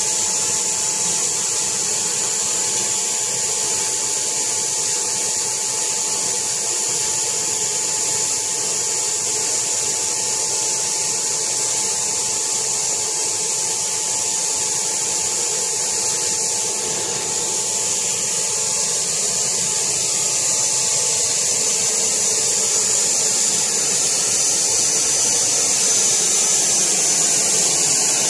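Steady whine of a battery-powered electric drive motor, growing a little louder over the last several seconds.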